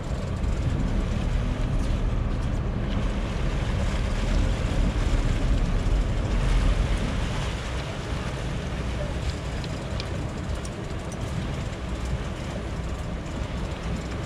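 A sportfishing boat's engines rumbling steadily while the propellers churn white water behind the stern, swelling about halfway through.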